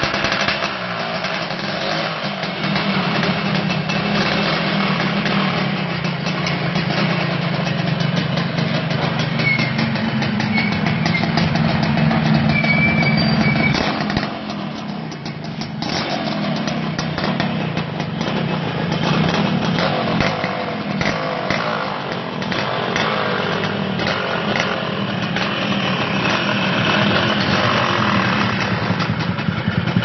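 Two-stroke motorcycle engine running through an aftermarket segmented 'banana' expansion-chamber exhaust (20 welded cuts). The engine note holds steady with a rasping crackle, rises and falls in level, and drops noticeably about halfway through.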